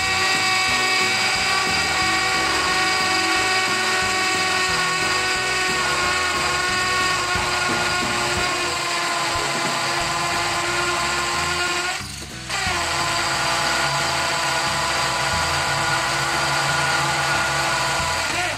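Porter-Cable PCC621 20V cordless hammer drill boring a quarter-inch masonry bit into concrete: a steady motor whine over grinding noise. It eases off briefly about twelve seconds in, runs again, and stops at the end.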